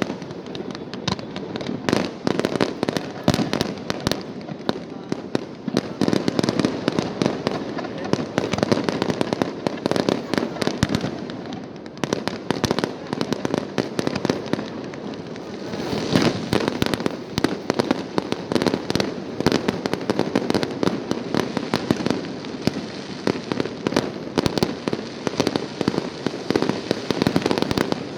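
Fireworks display: a dense, continuous barrage of bangs and crackles, easing off briefly about halfway through before a loud burst picks it up again.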